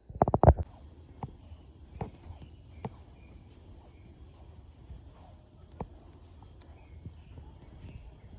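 Crickets chirring in a steady high-pitched drone, with a brief burst of loud low thumps at the very start and a few scattered soft ticks after.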